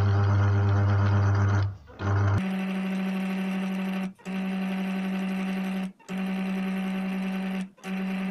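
Electric mini food chopper's motor running under load, blending a thick ground peanut, cocoa and honey paste with added olive oil. A low steady hum cuts out briefly about two seconds in, then goes on at a higher pitch in runs of a couple of seconds, each broken by a short stop.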